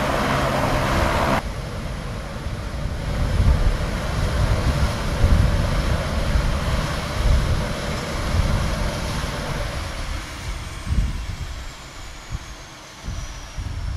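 Saab 340B's General Electric CT7 turboprop engines running on the ground: a loud roar with a steady pitched drone that stops abruptly about a second and a half in, then an uneven low rumble. From about ten seconds a high whine falls slowly in pitch as one engine winds down to a stop.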